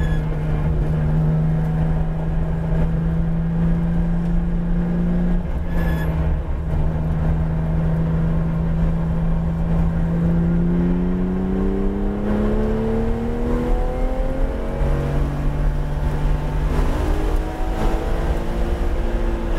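Porsche 911 GT3 RS's naturally aspirated flat-six heard from inside the cabin on track, over low road and wind rumble. The engine holds a steady pitch through a long corner for about ten seconds, then rises under hard acceleration, drops at an upshift about three-quarters of the way through, and rises again.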